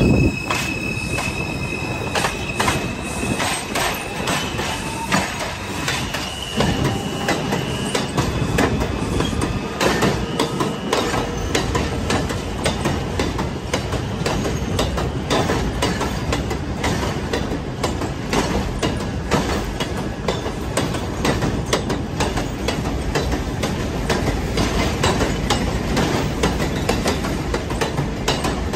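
New York City subway train running on elevated track, its wheels clacking steadily over the rail joints. A high wheel squeal rings during the first several seconds.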